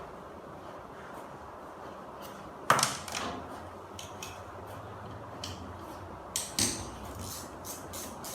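Irregular clanks and clicks of hard parts and tools being handled, with one sharp knock about three seconds in the loudest and another pair of knocks near the end, over a steady low hum.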